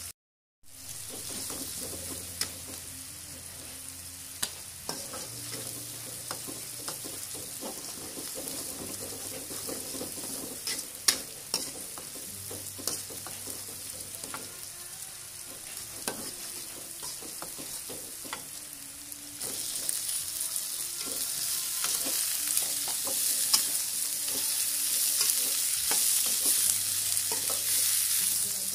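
Oil sizzling as chopped shallots, garlic and chillies fry in an aluminium wok, with a metal spatula scraping and clicking against the pan as it is stirred. The sizzling gets louder about two-thirds of the way through.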